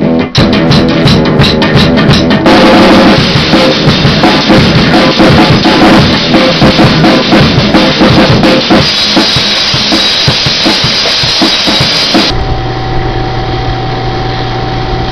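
Live rock band playing loud: a drum kit hammering out a fast beat with bass drum, snare and crashing cymbals over electric guitar. About twelve seconds in the music cuts off suddenly, leaving a steady low hum.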